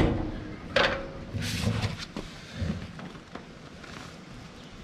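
Hands working the drive belt of a Troy-Bilt Horse tiller onto its rear pulley sheave: a couple of sharp knocks, the loudest at the very start and about a second in, then scraping and rubbing and small clicks from the belt and pulley housing.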